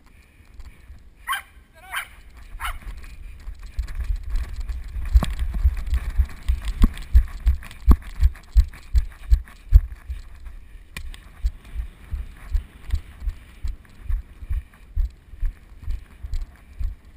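Running footfalls heard through a head-strapped GoPro in its waterproof housing: muffled low thuds at about two a second, starting a few seconds in, over a low rush of air on the housing.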